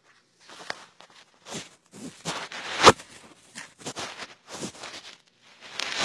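Paper towel dampened with rubbing alcohol being scrubbed back and forth over a circuit board's edge-connector pins: a run of rough, irregular rubbing strokes, the loudest about three seconds in.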